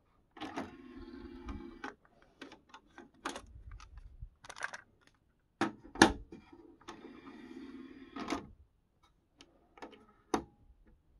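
Marantz 75SD2020 cassette deck mechanism being worked by hand: button presses and plastic clicks and clunks as the cassette holder is opened and the cassette is handled, with the loudest clunk about six seconds in. A small motor whirs twice, each time for about a second and a half, once about half a second in and once about seven seconds in, as the holder is motored open and then closed.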